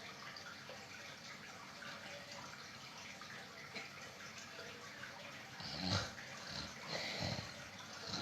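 Faint steady hiss, then, a little over halfway in, a sleeping pet starts snoring with a few short, louder snoring breaths.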